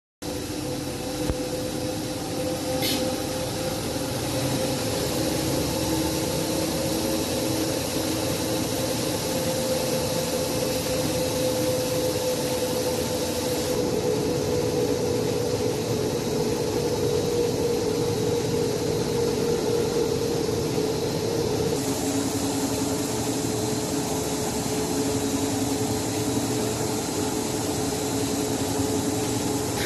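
High-speed film slitter rewinder running, with a steady mechanical whir and a held mid-pitched tone as the film web is slit into narrow strips and wound onto rolls. The tone shifts slightly twice, once about halfway through and again later.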